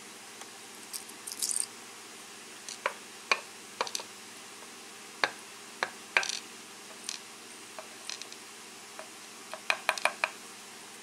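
Small metal lock pins and springs clicking and clinking as they are handled on a work surface: scattered light taps, a short rattle about a second and a half in, and a quick run of clicks near the end.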